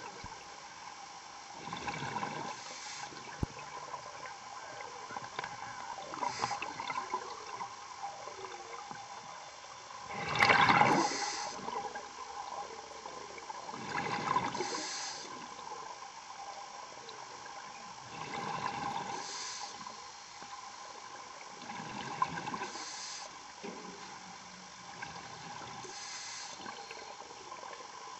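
Scuba diver breathing underwater: bursts of exhaled bubbles about every four seconds over a steady hiss, the loudest burst about ten seconds in.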